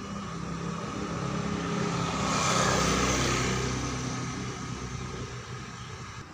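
A road vehicle driving past, growing louder to its closest point about two and a half seconds in and then fading away, its engine note dropping lower as it goes by.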